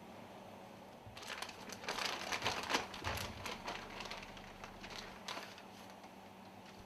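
Hands handling small parts: a quick run of small clicks, scrapes and crinkling that starts about a second in and tails off after about five seconds.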